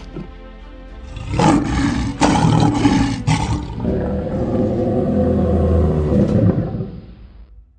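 Lion roar sound effect: a loud stretch of several pulses, then a lower, sustained part that fades out near the end.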